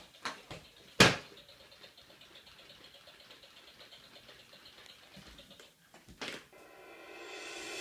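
A few sharp knocks of a toy jumping hand on a wooden parquet floor, the loudest about a second in and one more near the end, with faint hiss between.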